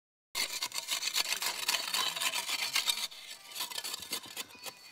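Split bamboo being rubbed and scraped by hand as slats are lashed together with green bamboo strips: a dense run of rapid scratchy strokes. It starts suddenly and is loudest for the first few seconds, then quieter.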